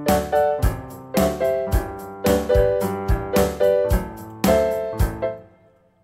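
Yamaha PSR-S975 keyboard's piano voice playing back a recorded MIDI pattern: chords struck in a steady rhythm, with drum hits sounding under them. The playback fades out near the end and starts over just after. The drum notes were recorded into the piano take by mistake.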